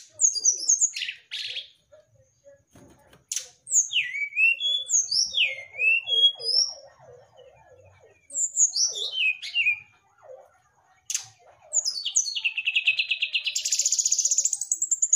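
Brown-chested jungle flycatcher singing in short phrases of sharp, down-slurred whistles and chips, with a fast buzzy trill over the last three seconds.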